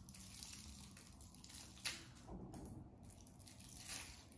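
Faint crinkling of a clear plastic bag being pulled and torn open by hand, with one sharper crackle a little under two seconds in.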